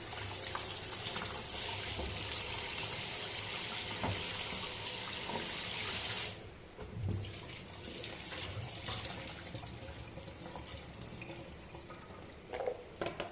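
Water running from a tap while kencur (aromatic ginger) rhizomes are washed clean by hand. About six seconds in the flow stops abruptly, leaving fainter water sounds and small knocks.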